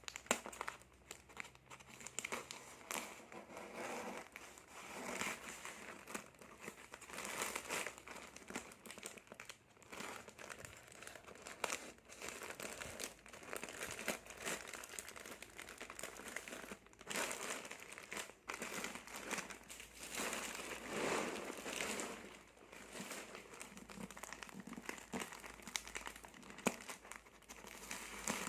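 Parcel packaging crinkling and rustling in irregular handfuls, with short clicks and scrapes, as it is opened by hand.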